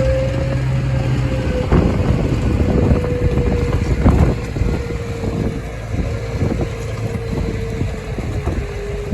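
Farm machinery engine running steadily with a sustained whine that sinks slightly in pitch, over irregular clattering knocks, with wind buffeting the microphone.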